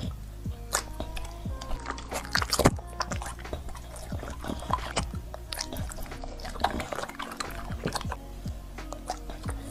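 A dog chewing juicy red dragon fruit taken off a fork: many wet, smacking bites and slurps, over quiet background music.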